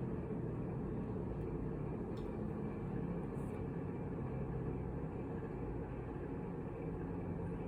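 Steady low background hum of room noise, even throughout, with no distinct swallowing or gulping sounds standing out.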